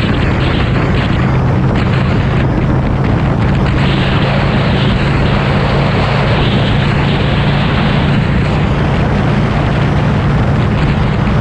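Motorcycle engine running at a steady speed with a constant low hum, under heavy wind rush on the microphone while riding.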